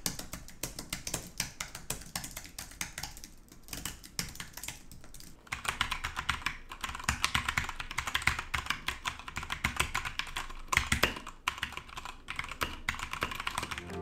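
Typing on an Apple flat-profile keyboard, soft quiet key clicks. About five and a half seconds in it changes to typing on a Keychron K2 V2 mechanical keyboard with Gateron Brown switches, whose keystrokes are louder and brighter.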